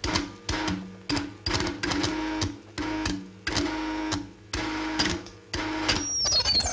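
Electronic film soundtrack: machine-like pulses of noise with a low tone that switches between two pitches, coming unevenly at about two a second. A quick falling high whistle comes near the end.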